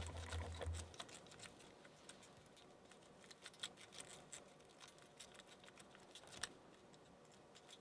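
Faint, scattered metallic clicks and scratches of a city rake being worked in and out of a small 4-pin Ruger No. 5025 gun lock under tension, with a slightly louder click about three and a half seconds in and another near six and a half seconds.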